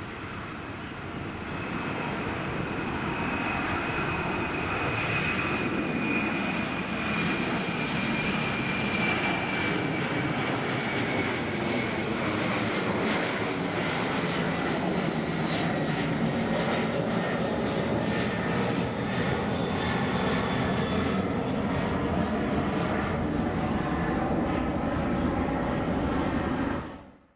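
An Alitalia Airbus A330-200 twin-engine jet airliner's engines running loud, with a high whine that slowly falls in pitch over the roar. The sound cuts off abruptly near the end.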